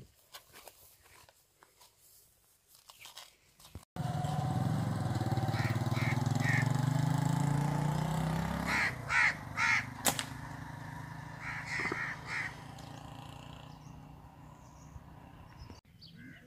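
Faint footsteps of sandals on concrete and grass for the first few seconds. Then crows caw in short groups of harsh calls, loudest about nine seconds in, over a low engine drone that fades out.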